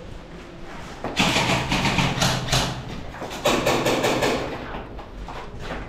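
Airsoft rifle fire in two rapid full-auto bursts, the first about a second in and lasting over a second, the second shorter, starting halfway through.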